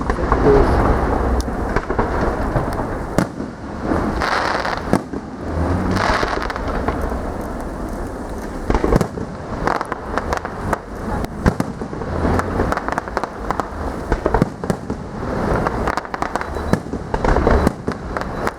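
Fireworks display: a continuous run of sharp bangs and crackling, with heavier booms of shells bursting about half a second, six seconds and twelve seconds in.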